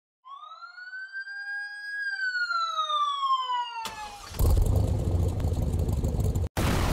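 A single siren-like tone sweeps up, then slides down. About four seconds in, loud electronic intro music with heavy bass cuts in, dropping out for an instant near the end.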